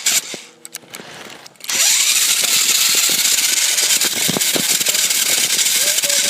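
Small RC car driving, its motor and wheels making a loud, steady rushing noise that starts about two seconds in after a brief quieter stretch with a low hum.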